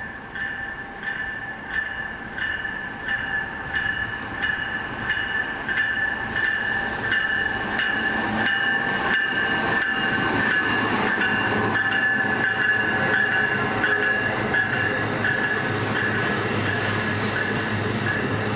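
Amtrak Northeast Regional train approaching and running by, its wheels clicking over rail joints faster and faster as it grows louder, with a steady high ring over it.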